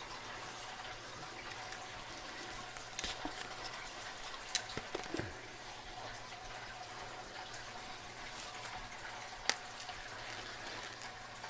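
Faint scattered clicks and taps from handling the packaging and small parts of a lock-pick kit, with a sharper single click about nine and a half seconds in, over a low steady hum.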